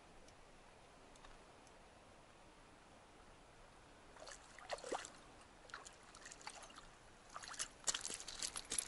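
Faint hiss for about four seconds, then a small hooked whitefish splashing in the shallows as it is reeled to the bank. From about seven seconds come quick clicks and crunches of shingle as it is slid out onto the pebbles.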